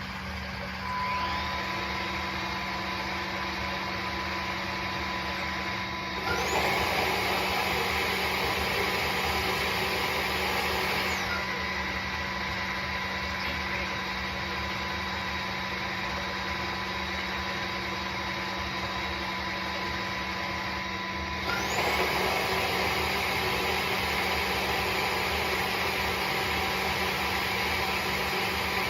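Tineco Floor ONE S5 wet-dry vacuum mop running its self-cleaning cycle on the dock, its motor and brush roller running steadily. The motor spins up with a rising whine and gets louder about six seconds in, eases back about five seconds later, then spins up louder again about twenty-one seconds in.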